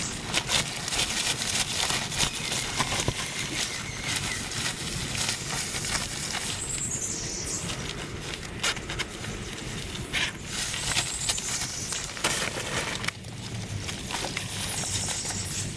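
Waterproof rain jacket fabric rustling and crinkling close up as it is pulled on over the head and adjusted, with many small handling clicks and scratches.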